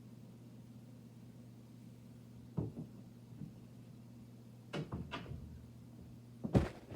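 A steady low hum with a few light, scattered knocks and clunks, then a louder thump near the end.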